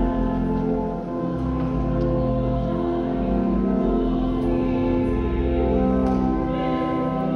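Church organ playing slow, held chords that change every second or two.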